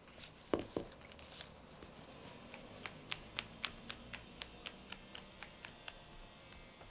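Pages of a wire-bound paper planner being turned by hand, one after another: faint, light ticks about three or four a second, with two slightly louder clicks about half a second in.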